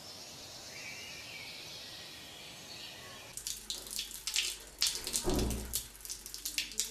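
Faint background hiss, then from about three seconds in, irregular splashing of water in a tiled bathroom over a low steady hum.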